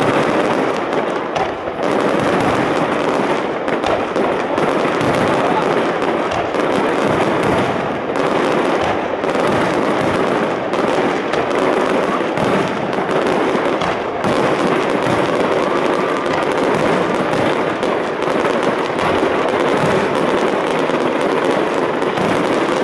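A fireworks display firing continuously: dense crackling and popping, packed close together without a break.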